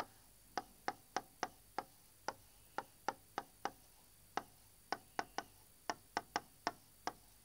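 Pen tip clicking against a writing board as words are written by hand: about twenty sharp, short taps at an uneven pace, one for each stroke.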